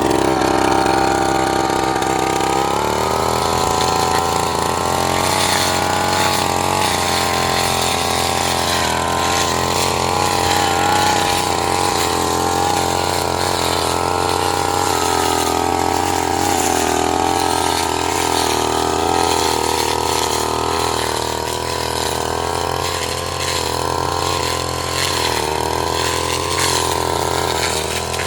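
Small petrol engine of a grass-cutting machine running steadily, with a slight change in tone about three seconds in.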